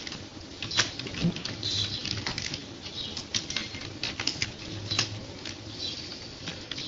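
Typing on a computer keyboard: irregular key clicks, a few a second, with short pauses between runs.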